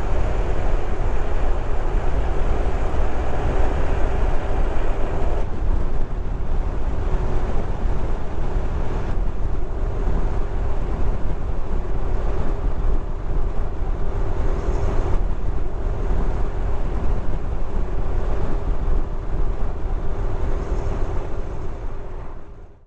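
Touring motorcycle ridden on the road: wind rushing over the microphone with a low rumble and a steady engine drone, changing abruptly a few times and fading out at the very end.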